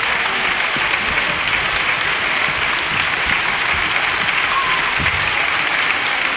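Steady applause from a large theatre audience, many hands clapping at once without a break.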